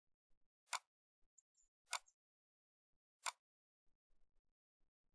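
Three short, sharp computer mouse clicks, a little over a second apart, with near silence between them.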